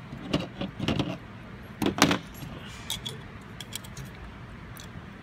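Thin metal back plates clattering and clinking as they are picked up and handled, loudest about two seconds in. After that come a few lighter metallic ticks of pliers working at a hole in the plate.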